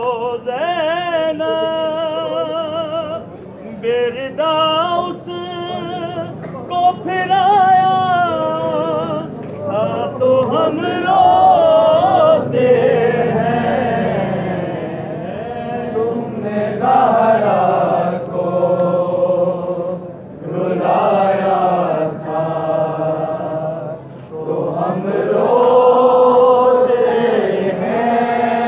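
Noha, a Shia lament, sung by men. A solo reciter's voice with a heavy, wavering vibrato leads for the first several seconds. From about ten seconds in, a crowd of men sings the lines together in long rising and falling phrases.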